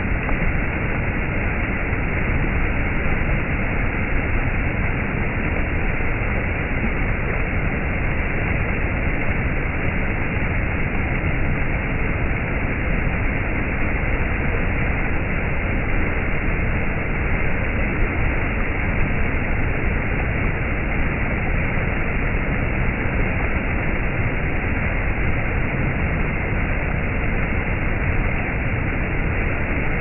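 Small stream running over stepped rock ledges: a steady, even rush and splash of falling water that sounds dull, with no high end.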